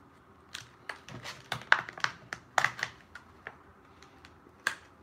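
Plastic packaging of soft-plastic paddle-tail swim baits handled and opened by hand: irregular clicks and crackles of the plastic, sharpest about halfway through and near the end.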